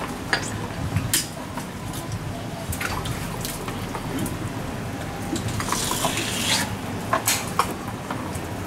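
Wet kitchen sounds of eel preparation: scattered knocks and clinks of a live eel and metal tools on a wet wooden cutting board, with a brief watery splash about six seconds in.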